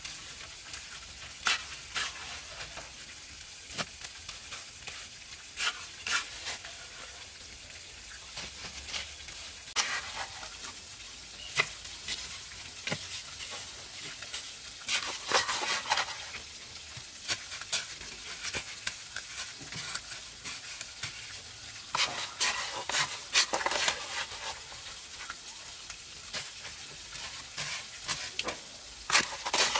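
Steel trowel scooping and spreading wet cement mortar onto a brick rim, in irregular short scrapes and taps of metal on gritty mortar and brick, with a few longer scraping passes.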